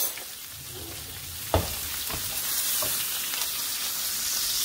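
Beef roast searing in hot oil in a skillet, a steady sizzle. A sharp clack about a second and a half in, then two lighter taps, as a fork strikes the pan while lifting the meat to check the sear.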